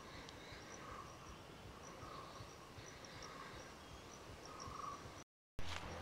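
Forest ambience: a short call repeating about once a second over faint high chirps and a steady hiss of wildlife. The sound drops out for a moment near the end.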